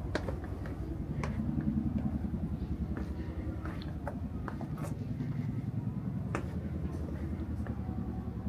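Open-air city ambience: a steady low rumble of distant traffic with faint voices in the background, and scattered light clicks and taps, likely footsteps on stone steps.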